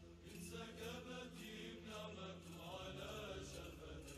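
Faint background music: a slow, chant-like melody with long held notes.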